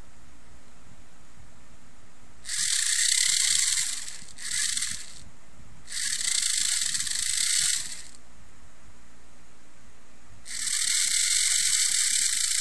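Custom Optimus Prime gatling gun running in four bursts of high, hissy whirring, the second one short.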